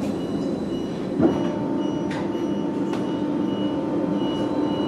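Cabin sound of a Neoplan AN440LF-ETB electric trolleybus in motion: a steady rumble with a short, high warning beep that keeps repeating. About a second in there is a knock, and a steady higher tone comes in with it.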